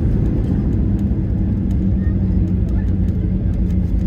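Steady low rumble of a WestJet jet airliner's engines and airframe heard from inside the cabin after landing, with a few faint ticks or rattles.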